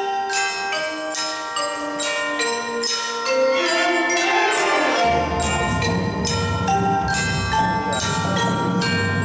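Marching band music: mallet percussion plays a melody of separate, ringing struck notes, and about halfway through the fuller band comes in underneath with a thicker, lower sound.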